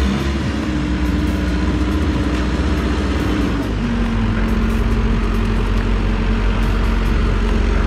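Caterpillar backhoe loader's diesel engine running steadily as the machine drives forward; its note drops a little about halfway through.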